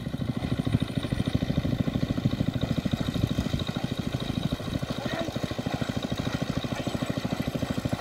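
A small engine running steadily with a fast, even chugging beat.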